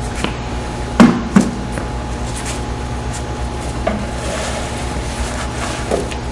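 Two sharp knocks close together about a second in, like something hard being set down or struck, then a few lighter clicks and rustles, over a steady mechanical hum.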